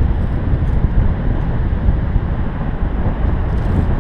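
Steady wind rushing and buffeting on the camera microphone, made by the airflow of a paraglider in flight.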